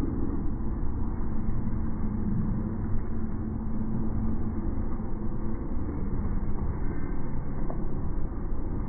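Steady low rumbling background noise, with a faint hum for a few seconds near the start.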